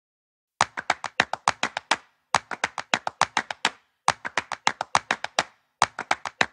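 Sharp percussive taps in four quick runs of about nine strokes each, separated by short pauses, opening a music track's intro.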